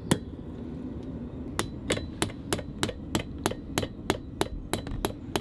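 Blacksmith's rounding hammer striking a red-hot iron bar on an anvil: one blow near the start, then after a pause of about a second and a half a steady run of blows, about three a second.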